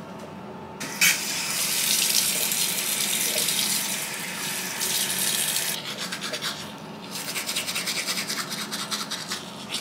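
Bathroom sink tap turned on about a second in and running for about five seconds, then shut off, followed by a manual toothbrush scrubbing teeth in quick back-and-forth strokes, about four a second.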